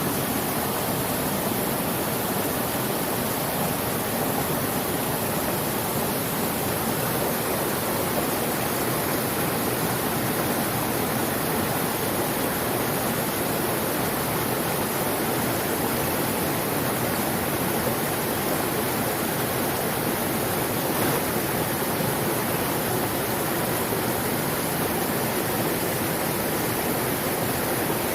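Mountain stream water rushing, a steady, even noise that does not change.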